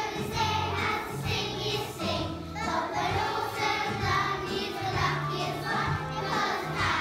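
A group of young children singing a song together over musical accompaniment with a steady bass line.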